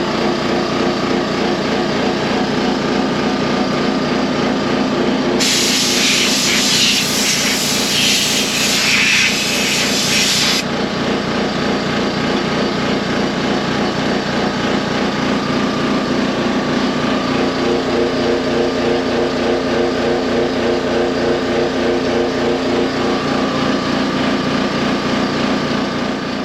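An air compressor's motor runs steadily with a fast, regular pulse. About five seconds in, compressed air hisses hard from a blow gun for about five seconds, then cuts off sharply.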